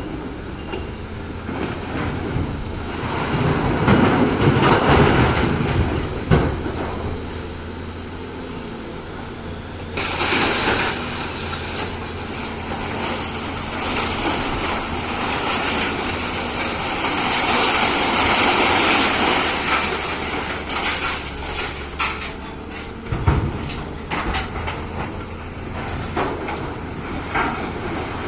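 Wheeled excavator's diesel engine running steadily under load with its hydraulics working, while scrap metal scrapes and clatters. There are a few sharp clanks, one a little after six seconds and another past twenty-three seconds.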